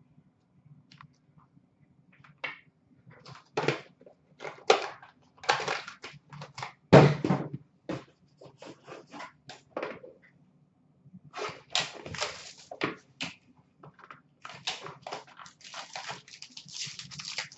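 Handling of cardboard boxes: a string of knocks and scrapes, the loudest about seven seconds in, as a box of trading cards is lifted out of a shipping case. Then, from about eleven seconds in, dense crinkling and tearing as the foil wrapper is pulled off the box.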